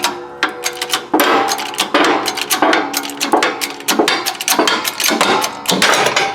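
Repeated hammer blows on steel, the strongest about every 0.7 s with lighter taps between, each leaving the metal ringing: the worn front wheel hub and seized bearing being knocked apart from the steering knuckle.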